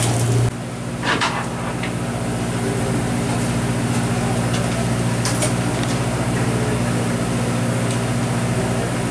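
Steady low hum of a party fishing boat's onboard machinery, with a few light knocks and clatters on deck.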